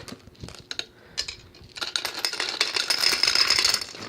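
Gumballs clattering into a glass gumball-machine globe: a few scattered clicks at first, then a dense, continuous rattle of gumballs pouring in over the last two seconds.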